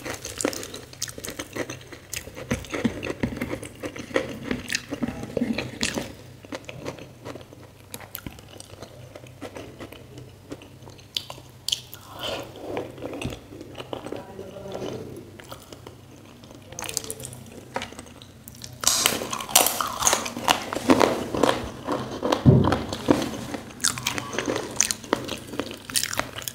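Close-miked chewing and mouth sounds of a person eating dhido and spicy potato curry by hand, with many small wet clicks. The chewing grows louder about two-thirds of the way in.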